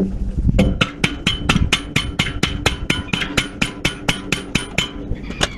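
A hammer striking metal in a rapid, even series of about four or five blows a second for some four seconds, each blow ringing. One more blow comes near the end.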